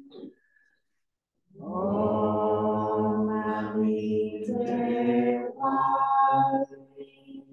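Buddhist devotional chanting: a voice singing long held notes, starting about a second and a half in, changing pitch a few times, then trailing off near the end.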